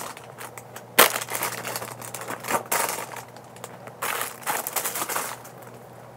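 Plastic wrappers and bags crinkling and rustling in irregular bursts as squishy toys are handled, with one sharp tap about a second in as the loudest sound.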